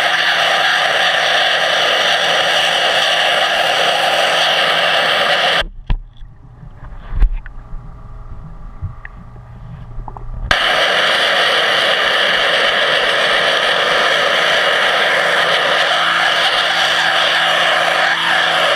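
Underwater pressure-washer jet blasting a stainless-steel intake screen with a loud, steady hiss. About six seconds in the jet cuts off abruptly for roughly five seconds, leaving a low hum and a few knocks, then comes back on at full force.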